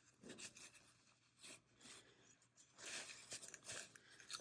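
Faint paper rustling and rubbing of a napkin wiping old, gunky grease out of a car door lock mechanism, in a few short scratchy bouts.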